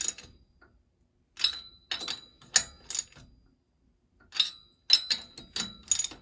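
Socket ratchet clicking in two bursts of quick ticks as the cylinder head nuts are run down in a cross pattern.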